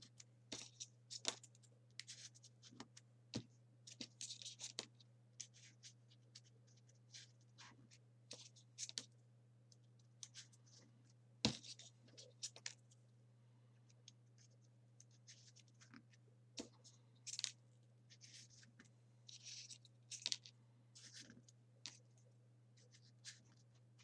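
Folded printer-paper 3D origami pieces rustling and clicking softly as they are picked up and pushed into place on the model, a scatter of short scratchy sounds over a steady low hum.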